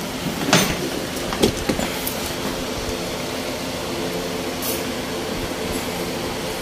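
A steady mechanical hum with a few steady tones in it, and two short clicks, about half a second in and again at about a second and a half.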